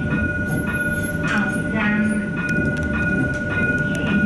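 European-built light-rail tram running between stops, heard from the driver's cab: a steady low rumble with a thin, steady high whine over it.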